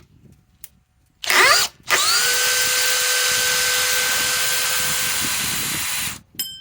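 DeWalt DCD805 cordless drill/driver, powered by a Milwaukee Forge 6 Ah battery through an adapter, running free. A brief spin-up is let go, then the drill is run again for about four seconds with a steady whine and stops abruptly, followed by a few light clicks.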